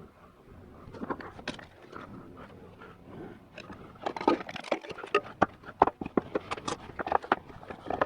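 Metal parts of a 4L80e automatic transmission clinking and knocking as they are handled and pulled apart, a scattered run of sharp clicks that gets busier about halfway through.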